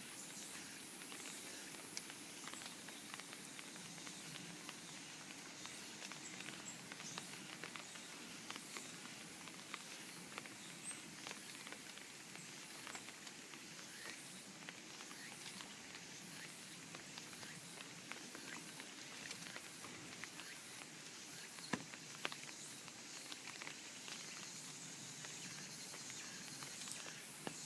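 Faint summer outdoor ambience: cicadas hissing steadily high up, with many small ticks of rain pattering.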